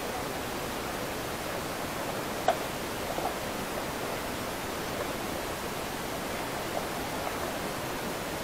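Steady hiss of background noise with one sharp click about two and a half seconds in and a few fainter ticks after it.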